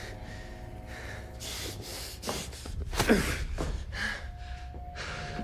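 A man's heavy, ragged breathing in repeated gasps, with a short falling groan about three seconds in, over a low steady hum.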